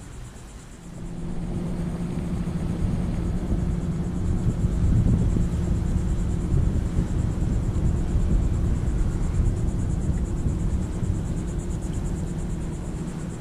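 Yamaha 115 outboard motor running at low speed, pushing the boat, with a steady low hum and rumble that comes up about a second in.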